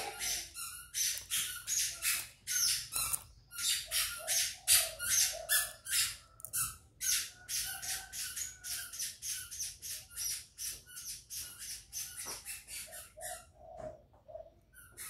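Quick, harsh chirps from a small bird, about three a second and unbroken, over soft low coos that fit a spotted dove.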